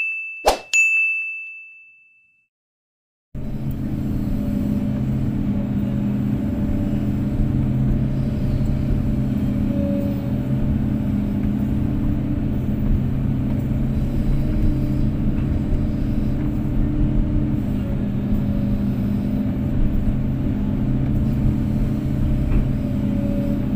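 A bright chime dings and fades out over the first two seconds. After a second of silence, a Kobelco SK250-8 excavator's diesel engine cuts in and runs steadily, a dense low drone with a faint whine above it.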